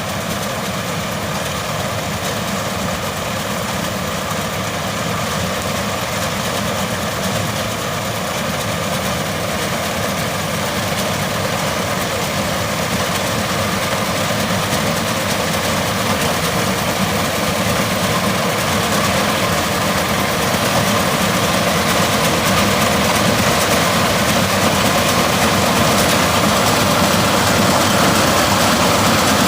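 Changfa CF805N combine harvester running steadily with a continuous heavy engine and machinery noise, growing slowly louder.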